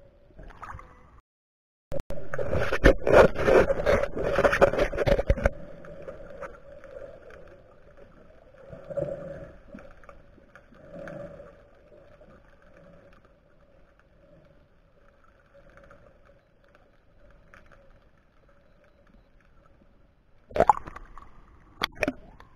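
Underwater sound through an action camera's waterproof housing: a loud stretch of water rushing and bubbling, then a faint steady hum with a few swells, and sharp splashes near the end as the camera breaks the surface.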